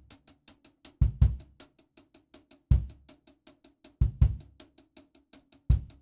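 Background music: a drum-kit beat, with heavy bass-drum hits (a double hit, then a single, repeating) over a fast steady ticking.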